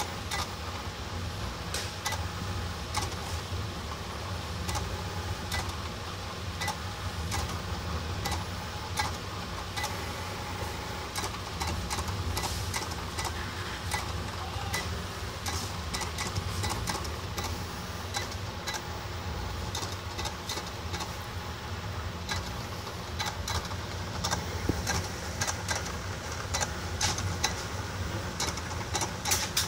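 CNC marking machine fitted with a marker pen, plotting: a steady motor hum under a stream of sharp, irregular clicks from the moving pen head, with the clicks coming thicker near the end.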